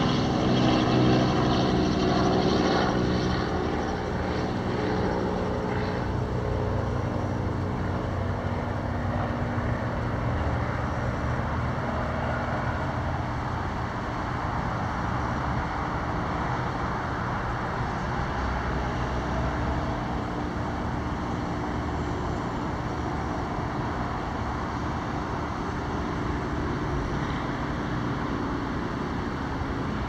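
An aircraft passing over: its engine tone is loudest at the start and fades away over the first several seconds. Underneath, a steady hum of road traffic continues throughout.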